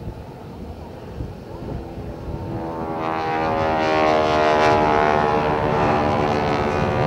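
De Havilland Tiger Moth biplane flying past, its Gipsy Major piston engine and propeller droning. The engine note is faint at first, then grows loud about three seconds in as the plane comes closer, and stays loud.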